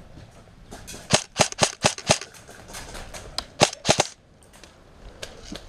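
Airsoft gun firing single shots: a quick run of about five sharp cracks starting about a second in, then three more a little later.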